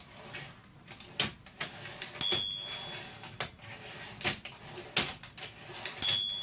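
Olympia SM7 portable typewriter worked by hand, its mechanism clicking and knocking, with the carriage bell giving a clear ding twice, about two seconds in and near the end. The bell rings as the carriage nears the end of the line, here with the margin release key in use.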